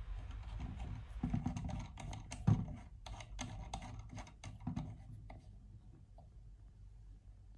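Metal antenna adapter being twisted and screwed onto a handheld VHF radio's antenna connector: a run of small clicks and scrapes that stops about five seconds in.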